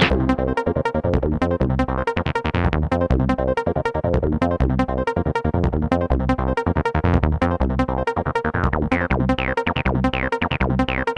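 Background electronic dance music with a steady, fast beat.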